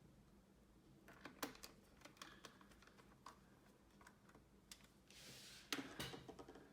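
Faint, irregular clicks and taps of a plastic laptop being handled, with a short hiss about five seconds in and a couple of sharper knocks just after.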